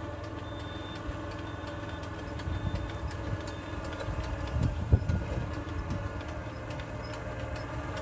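An engine idling steadily in the background, with a soft thump about five seconds in.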